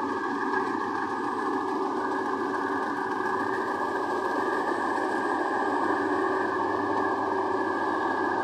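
Rice combine harvester running steadily, its engine and machinery making an even, unbroken mechanical din.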